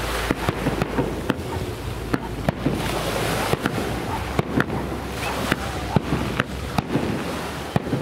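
Fireworks display going off: a quick, irregular run of sharp bangs from bursting shells, several close together at times.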